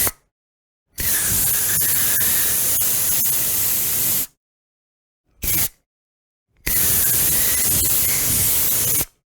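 Aerosol spray can hissing in separate bursts: a short spritz at the start, a long spray of about three seconds, another short spritz, then a second long spray of about two and a half seconds, with silence between them.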